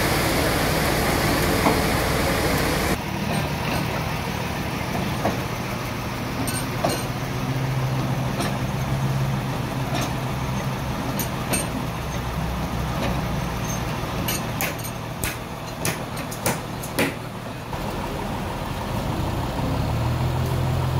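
Band sawmill working: a steady dense hiss of the saw running for the first few seconds, then a low machine hum with scattered sharp knocks and clanks as the log carriage is worked. Near the end a forklift engine comes in, running steadily.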